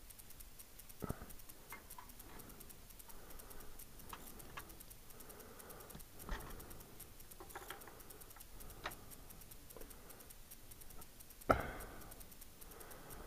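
Scattered faint clicks and light knocks, with one sharper knock near the end.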